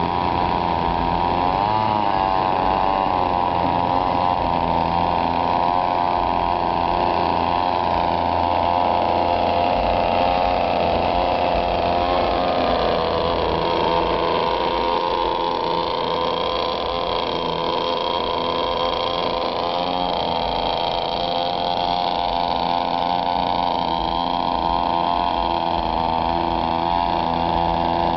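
Homemade outboard motor idling steadily, its speed sagging a little for several seconds midway before picking back up.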